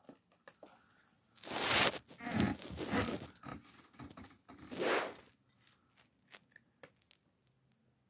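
A cat crunching dry kibble: a run of short, sharp crunches in the second half. Before that, three loud rasping noise bursts dominate the first half.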